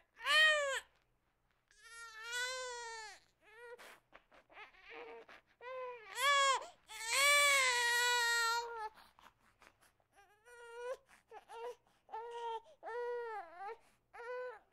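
A baby crying in a string of rising-and-falling cries with short gasps between them. The longest and loudest cry comes a little past halfway, followed by shorter, softer cries.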